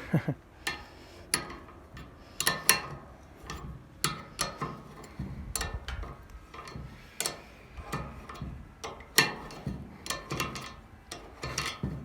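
Irregular light clicks and metallic knocks from handling the alternator and tools, with its overrunning clutch pulley just removed.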